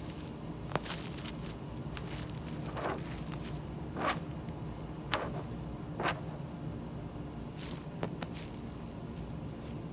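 Tissue paper and a thin plastic bag crinkling in short, irregular rustles as a cat noses and paws through them, over a steady low hum.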